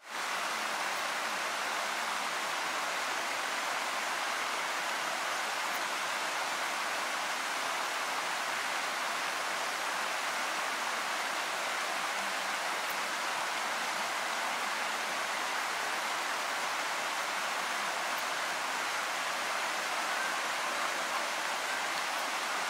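Steady, even rush of flowing stream water.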